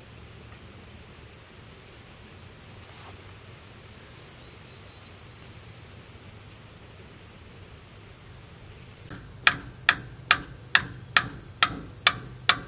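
Steady high trilling of crickets. About nine seconds in, a regular run of sharp, ringing metal strikes begins, a little over two a second, like hammer blows.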